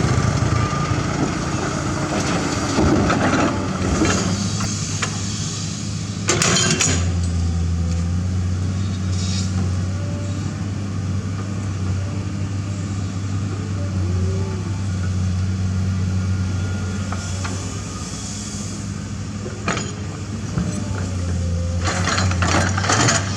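Heavy construction-machine diesel engine running steadily. It holds a deeper, stronger hum from about seven seconds in, with short clanking knocks about six seconds in and again near the end.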